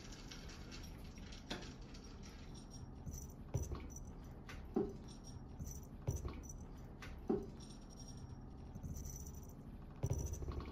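Cats scuffling and swatting at each other on a wooden surface: a string of short thumps and knocks from paws, about one a second or so, the loudest near the end, with a light metallic jingle from a collar charm.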